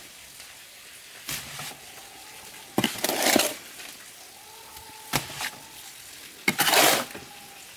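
A hand tool striking and scraping something rough, four strokes about a second and a half apart, each a sharp hit followed by a short scrape.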